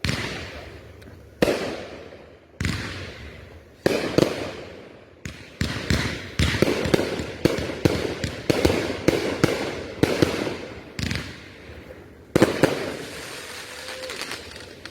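Consumer aerial fireworks going off in a string of sharp bangs, each trailing off in a rumbling echo. The first few come about a second and a half apart, then a rapid volley of overlapping bangs follows in the middle, and one last loud bang comes near the end.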